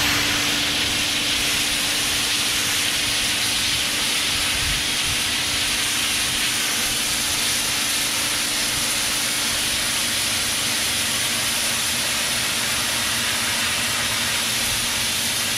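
Stanley 2150 electric pressure washer running with the trigger held: a steady motor-pump hum under the loud, even hiss of a narrow zero-degree water jet striking brick.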